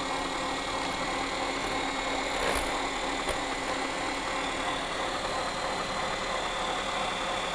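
Electric hand mixer running steadily, its beaters whisking egg yolks for a sponge cake batter in a glass bowl, with a stand mixer whipping egg whites to a foam alongside. An even motor whir with a light whine.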